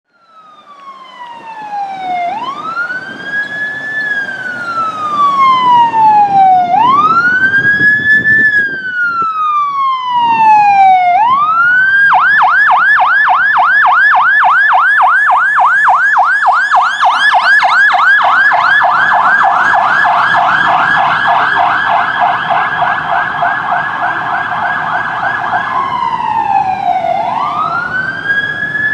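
Electronic siren of a San Bernardino County Fire medic squad truck responding. It fades in on a slow wail, each cycle rising and then falling over about four seconds. About twelve seconds in it switches to a fast yelp, then goes back to the wail near the end.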